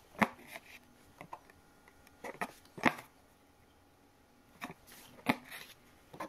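Embroidery needle punching through cotton fabric stretched taut in a hoop and thread drawn after it while back stitch is sewn: three sharp pops, roughly two and a half seconds apart, with softer ticks between.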